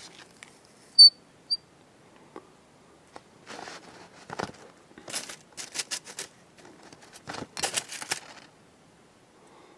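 Close handling noises of fly tying at the vise on a spun deer-hair body: a sharp metallic tick about a second in and a fainter one just after, then a string of irregular scratchy rustles for several seconds as hair and thread are worked.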